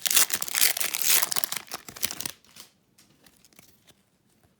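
Foil wrapper of a hockey card pack being torn open and crinkled, stopping abruptly a little over two seconds in; after that only a few faint clicks.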